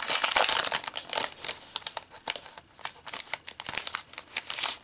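Crinkling and rustling of card-kit paper pieces and their packaging being handled and pulled out, in irregular crackles that are densest in the first second and again near the end.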